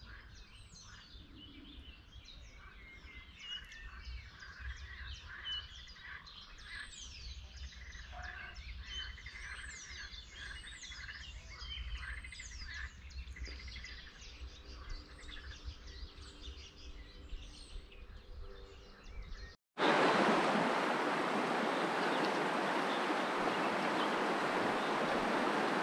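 Songbirds singing, with many quick descending chirps and whistles over a faint low rumble. At about 19.5 s the sound cuts abruptly to a louder, steady rushing hiss.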